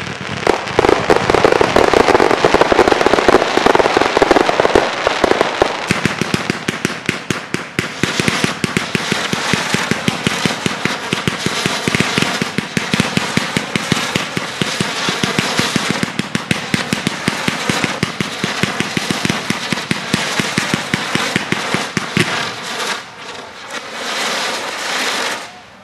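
Fireworks display: a dense barrage of shell bursts and rapid crackling, many pops a second. Heavier booms come in the first few seconds, and the sound stops abruptly at the end.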